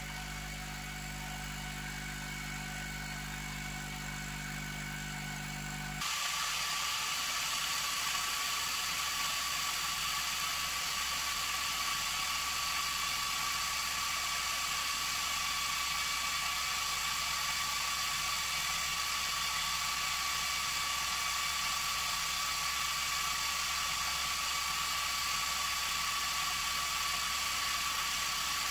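Laser engraver running while its 30 W LT-K30 diode laser cuts through a 20 mm wooden strip: a steady hiss of the air assist and fans with a held whine. About six seconds in, a steady low hum gives way abruptly to this louder hiss.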